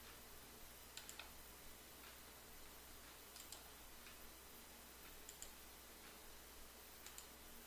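Faint computer mouse clicks, mostly in close pairs about four times, over quiet room tone with a low steady hum.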